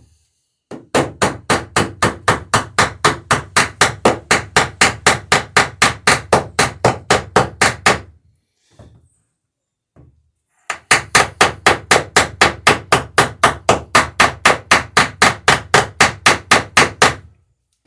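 Rapid hammer blows riveting the dory's planking strakes, about four ringing strikes a second. They come in two long runs with a pause of a few seconds between them.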